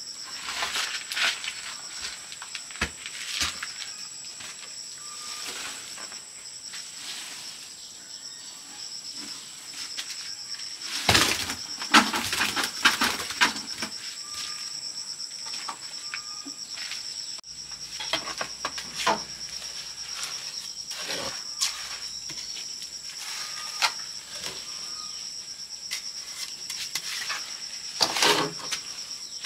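Crickets or similar insects trilling steadily on two high pitches, with irregular scrapes and knocks over them, a dense cluster about eleven seconds in and another near the end.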